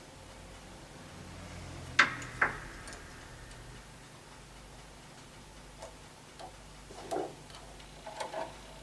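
Small hard clicks and taps from hand work on grand piano damper parts. Two sharp clicks come close together about two seconds in, then softer scattered ticks follow.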